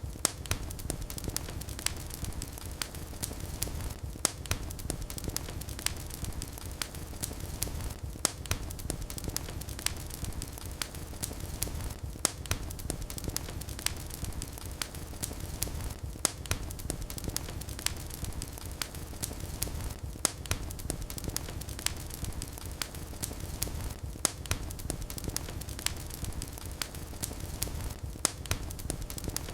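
Wood fire in a fireplace crackling and popping steadily over a low rumble of the flames, with frequent sharp pops. The same pattern of pops comes round about every four seconds.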